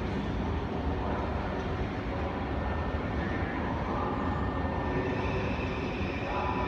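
Electric multiple-unit train running through a station: a steady rumble, with a whine of several tones joining about four seconds in.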